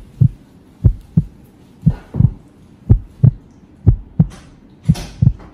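Heartbeat sound effect: pairs of low thumps, a quick lub-dub double beat about once a second.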